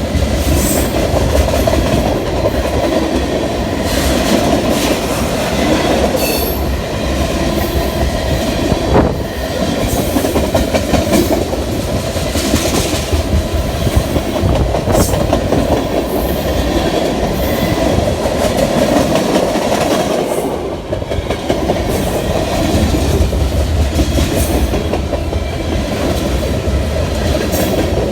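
CN train's railcars rolling past close by: a steady rumble with wheels clattering over the rail joints.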